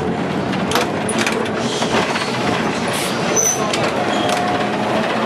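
Old wooden-bodied tram running along street rails, heard from inside its cab: a steady rumble and rattle of the car, with scattered clicks and knocks and a brief high squeak about three and a half seconds in.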